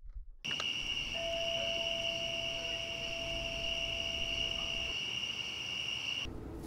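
Crickets chirring at night in a steady, unbroken chorus that starts about half a second in and cuts off abruptly near the end. A fainter, lower steady tone runs through the middle.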